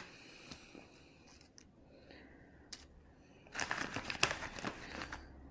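Crinkling and rustling from something being handled, mostly quiet with a few faint clicks at first, then a cluster of sharp crackles about three and a half seconds in.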